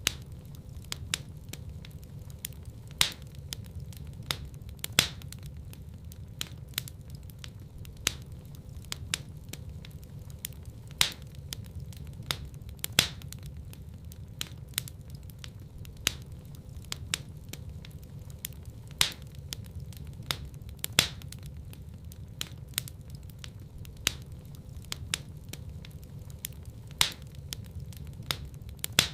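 Wood fire crackling in a fireplace: many sharp pops and snaps, several a second and a few louder than the rest, over a steady low rumble of the burning fire.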